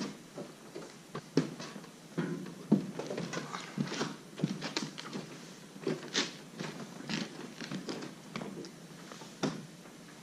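Irregular soft knocks, scrapes and rustles of hands working a freshly glued rubber canopy seal strip, pulling it back off the canopy frame.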